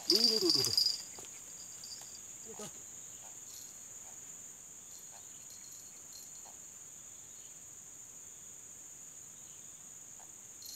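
Steady high-pitched chorus of insects, with a short rise-and-fall voice-like call in the first second and a few faint ticks.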